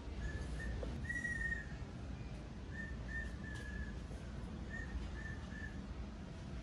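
Someone whistling a short tune: about nine brief held notes near one pitch, in three small groups, with the longest and loudest note about a second in. A steady low hum runs underneath.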